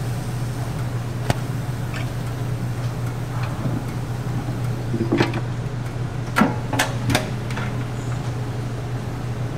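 Steady low hum of kitchen machinery, with a few sharp metallic clicks and clanks of tools and equipment around a commercial waffle iron, the loudest three coming close together about six to seven seconds in.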